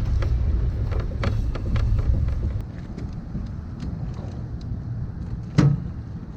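Empty kayak being pulled along the ground, a low rumble with scattered rattling clicks that stops about two and a half seconds in. A single loud knock follows near the end.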